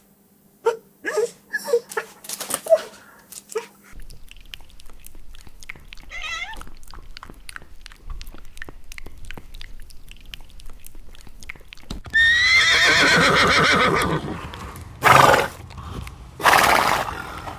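A horse whinnying: one long, loud, wavering neigh about two-thirds of the way through, followed by two short, loud bursts of noise. A few short animal calls come in the first few seconds.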